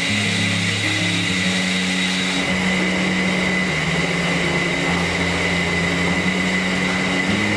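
Steady hiss with a constant high whine from steam feeding a steam-jacketed kettle as it heats a large batch of stock. Soft background music with slowly changing low notes plays underneath.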